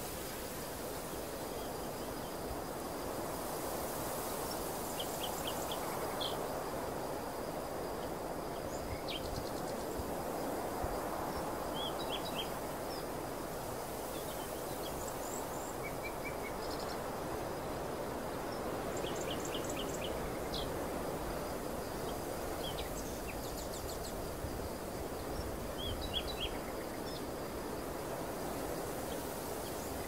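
Wind blowing across a barley field, swelling and easing in slow gusts. Small birds give short quick chirping phrases now and then.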